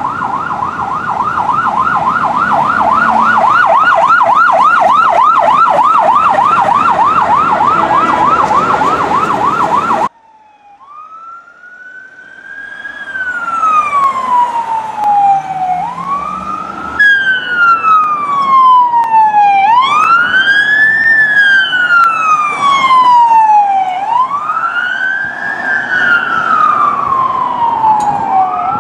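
Emergency vehicle sirens. A fast yelp warbles about four times a second and cuts off suddenly about ten seconds in. After a brief lull a wail takes over, rising quickly and falling slowly, each sweep about four seconds long.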